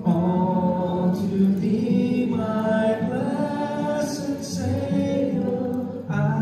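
Live worship music at a church service: several voices singing a song together, held notes with an acoustic guitar accompaniment.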